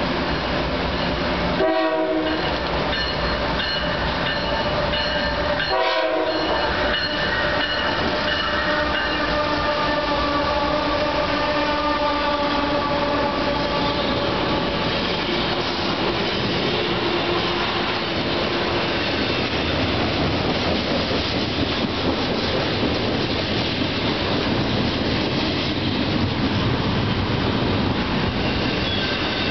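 The Nathan K5HL five-chime air horn of a GE ES44AC locomotive sounds a short blast about two seconds in, then a long blast from about six seconds that fades out around twelve seconds, over the rumble of the approaching freight train. After that, double-stack intermodal well cars roll past close by with steady wheel rumble and clatter.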